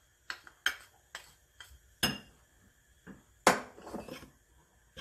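A metal spoon clinking and tapping against a glass mixing bowl as minced garlic is scraped off into dry flour: a string of sharp, irregular clinks, the loudest about three and a half seconds in.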